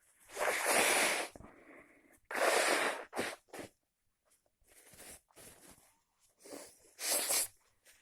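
Three loud sneezes, about a second, three seconds and seven seconds in, with quieter breaths between them.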